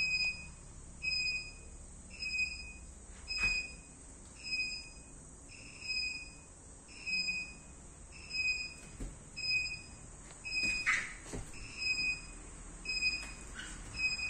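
A high, thin whistled note repeating evenly, roughly once a second, over a low, steady background hum. A few faint knocks are heard along the way.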